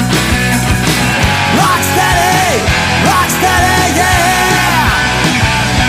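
Loud rock music backing track, with pitched lead lines that bend up and down.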